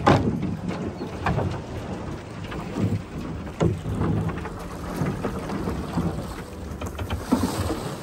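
Water splashing and slapping against the hull of a rowed boat, heard as irregular splashy knocks a second or two apart over a low rumble of wind on the microphone.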